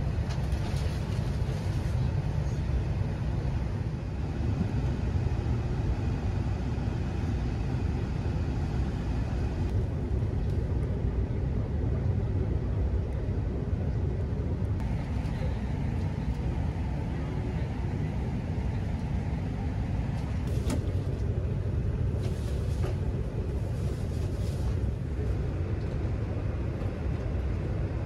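E6 series Shinkansen heard from inside the passenger cabin while running: a steady low rumble, with an occasional faint click.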